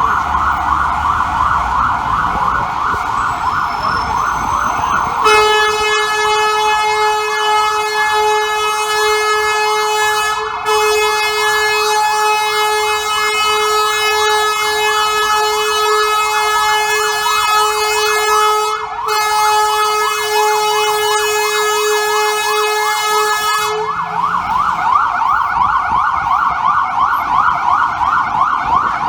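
Fire truck's electronic siren yelping in fast sweeps, then an air horn held in one long steady blast for about eighteen seconds, broken twice for an instant, before the yelping siren takes over again.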